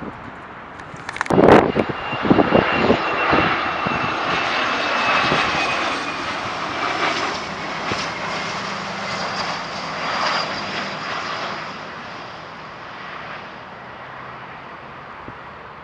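Jet airliner passing low overhead: a rushing engine noise with a thin whine that slides slowly down in pitch, building and then fading away. A few loud blasts come about a second and a half in, the loudest moment.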